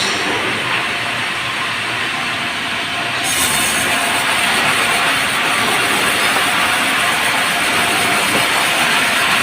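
Semi-automatic sawmill running, its saw cutting through merbau timber with a loud, steady noise. About three seconds in, a high hiss grows louder and holds.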